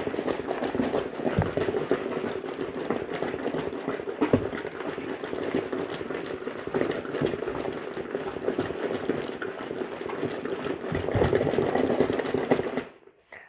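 Washing machine running its wash cycle: the motor hums steadily as the water churns in the tub, and it stops abruptly near the end.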